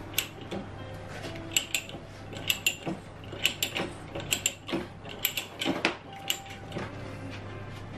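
Ratcheting pipe threader cutting threads on a steel pipe held in a bench vise: sharp metallic ratchet clicks come in short clusters about once a second as the handle is swung back and forth.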